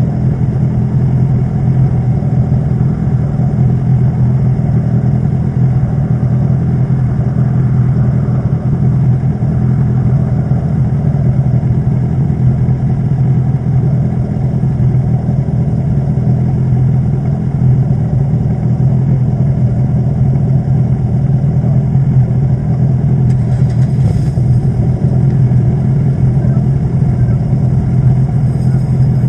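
Formula Silverstone single-seater's 1.6-litre Ford Duratec four-cylinder engine idling steadily at a standstill, heard close up from a camera mounted on the car.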